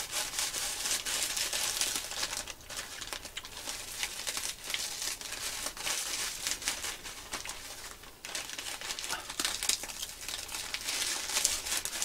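Plastic bag of Korean military hardtack crinkling steadily as the biscuits are crushed by hand inside it, easing off briefly about eight seconds in.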